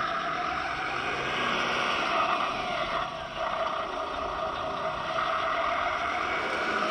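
1:11 scale Ural 4320 RC truck driving, its onboard sound module playing a simulated truck engine through small speakers, mixed with the whir of its brushed electric motor and gearbox. The pitch shifts a little about halfway through as the throttle changes.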